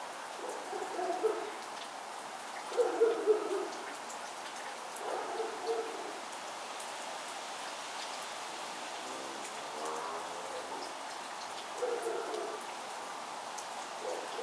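Short, low hooting calls from a bird, about six of them a couple of seconds apart, over a steady hiss with faint scattered ticks.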